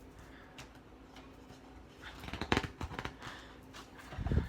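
Faint paper rustling and light clicks from a picture book's page being turned by hand, with a soft low thump near the end.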